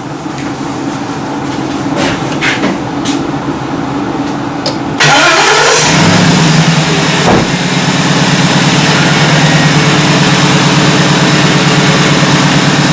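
A few light clicks, then about five seconds in the Ford E350's 5.4 L Triton V8 cranks and catches with a brief rise in pitch. It settles into a steady idle, running with a newly fitted ignition coil on cylinder 1 during a misfire test.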